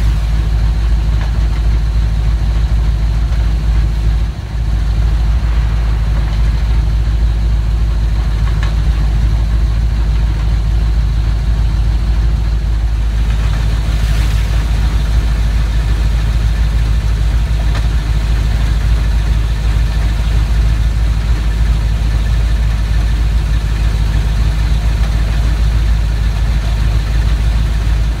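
4.8 LS V8 idling in third gear through a T-5 five-speed, turning the driveshaft and rear axle with the rear wheels off the ground. A steady rattling, grinding sound rides along with it, a driveline fault the owner can't place between the T-5's gears and bearings and the rear end's ring and pinion.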